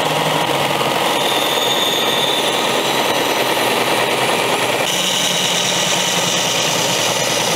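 Small bench belt sander running with steel held against the belt, a steady grinding hiss over the motor's hum. Its tone shifts about five seconds in.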